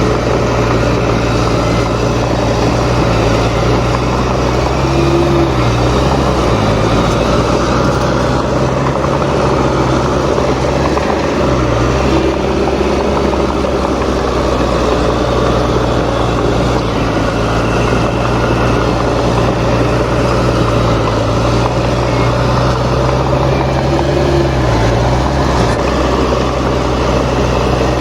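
Heavy construction machine's diesel engine running steadily, its pitch dipping briefly three times.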